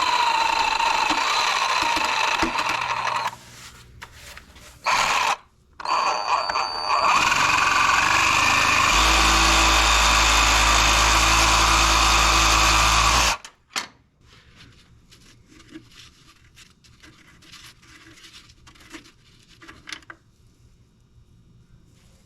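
A power tool running in loud bursts: about three seconds, a short burst near five seconds, then about six seconds more, with a whine that shifts in pitch, before it stops. Faint clicking and handling sounds follow.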